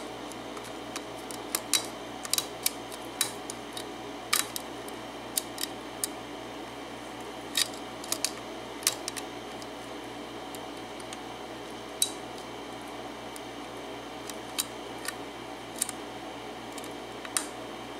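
Lock pick and tension wrench working the pin stacks of a Kwikset six-pin pin-tumbler cylinder during single-pin picking: small, irregular metallic clicks and ticks, a few sharper than the rest.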